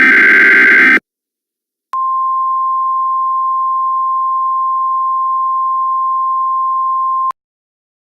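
Emergency Alert System header: a harsh data-tone burst of the digital SAME header cuts off about a second in. After a short silence comes the single steady attention tone used by weather radio alerts, held for about five seconds and cut off sharply, signalling that a spoken alert is about to follow.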